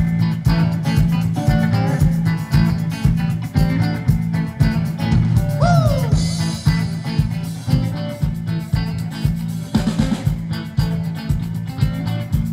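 Instrumental opening of an upbeat country-rock song: electric guitar over a steady drum beat and bass. One guitar note bends down about six seconds in.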